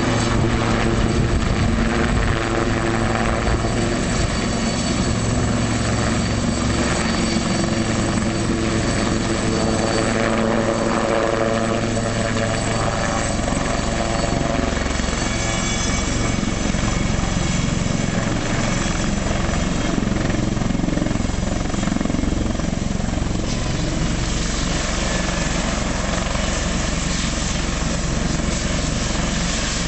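Westland Lynx helicopter running loud and steady: rotor blades and its twin Rolls-Royce Gem turboshaft engines as it hovers and manoeuvres low, with a high turbine whine coming through in the middle. Near the end it is on the ground with rotors still turning, running more evenly.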